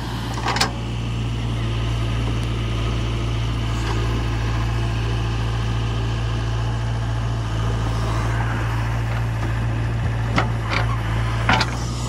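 Heavy diesel engine running steadily with an even low note. A short sharp knock about half a second in, and two more near the end.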